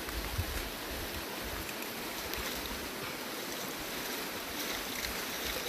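Steady rushing of a mountain brook's flowing water.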